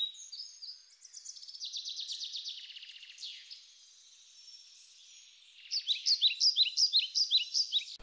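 Birdsong: series of high, quick chirping notes, with a rapid trill a little after a second in, a quieter spell in the middle, and a loud run of sharp repeated notes from about six seconds in.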